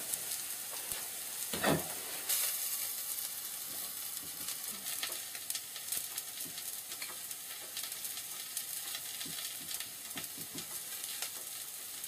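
Sliced onions sizzling steadily in a non-stick frying pan, with light clicks of utensils and a single knock about a second and a half in.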